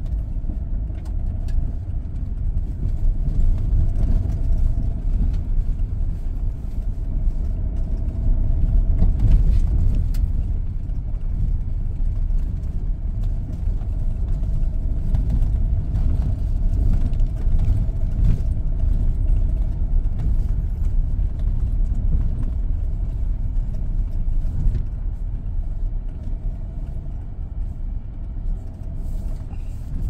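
SsangYong Rexton Sports pickup being driven, a steady low rumble of engine and running gear with a faint constant hum and occasional light ticks.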